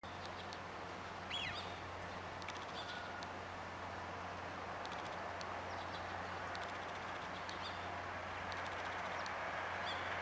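A few short bird chirps, falling in pitch, over steady outdoor background noise with a low hum. The background swells slightly near the end as a train draws closer.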